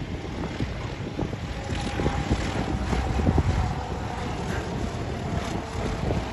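Twin-engine propeller plane on approach, a steady drone with a faint hum from about two seconds in, under heavy wind rumble on the microphone.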